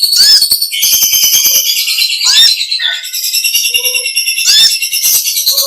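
Brown-throated sunbird (konin, 'kolibri ninja') singing a long, rapid high-pitched chattering song in the style of a lovebird's 'ngekek' trill, dense runs of trills and clicks broken by short hooked notes about every one to two seconds.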